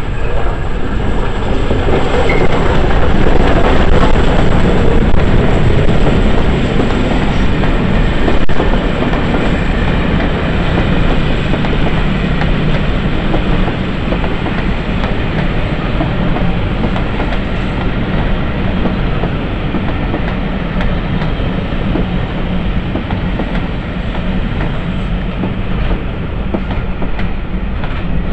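Peppercorn A1 Pacific steam locomotive 60163 Tornado and its train of coaches rolling past on arrival, wheels clattering over rail joints and pointwork. It is loudest over the first several seconds as the locomotive goes by, with a sharp knock partway through, then settles to a steady rumble and clatter as the coaches follow.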